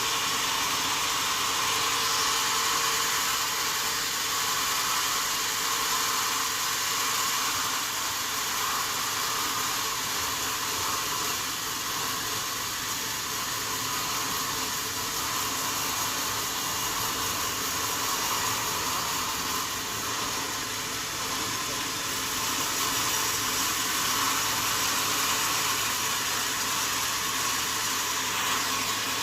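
Sawmill saw running steadily, a constant even noise with no pauses or impacts.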